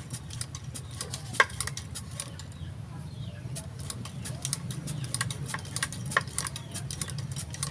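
Light metallic clicks and taps of hand tools and small metal parts being handled during airgun repair, a few sharper ones about a second and a half in and again near six seconds, over a steady low hum.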